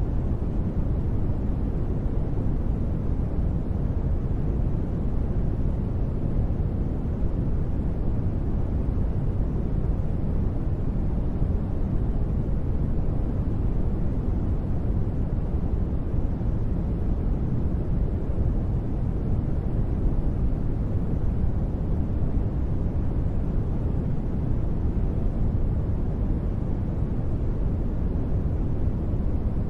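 Continuous steady noise for sleep, sold as white noise but weighted to the low end, so it sounds deep rather than hissy. It stays even throughout, with no sudden sounds.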